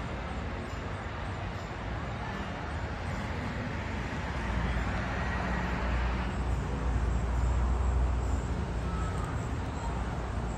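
Steady outdoor background noise with a low rumble that swells about halfway through and eases off near the end, like traffic or a vehicle going by.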